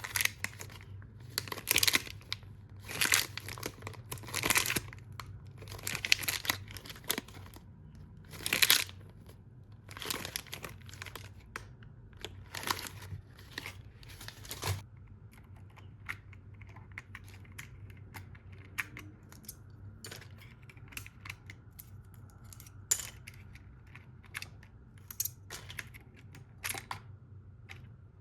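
Packaging being torn and crinkled open in a series of short rasping bursts through the first half, then scattered small sharp clicks and taps.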